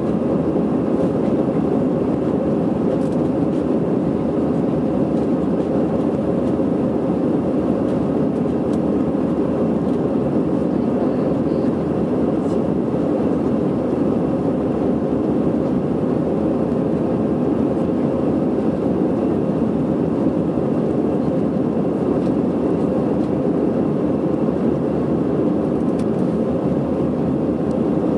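Airbus A320 cabin noise in the climb after takeoff: the jet engines and the rush of air over the fuselage make a steady, low, unbroken noise, heard from a window seat over the wing.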